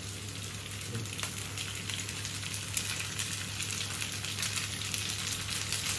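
Cream sauce sizzling in a frying pan on a portable gas stove: a steady hiss with light crackling as the hot sauce cooks around freshly drained tagliatelle.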